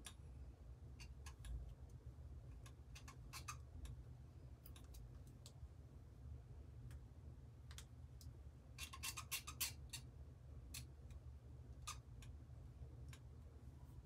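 Faint scattered clicks and light handling noise from a spring-clamp curling iron held wound in hair, with a cluster of quick clicks about nine seconds in, over a low steady hum.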